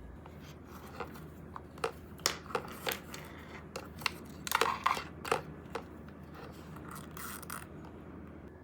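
Packaging being handled and opened: a run of sharp clicks and crinkles, busiest near the middle, then quieting.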